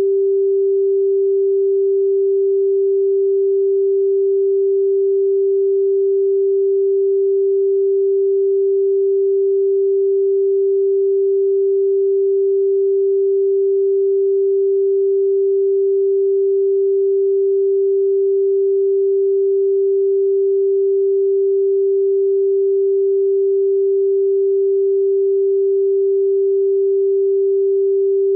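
Steady pure sine tone at 392 Hz, the note G4, unchanging in pitch and level.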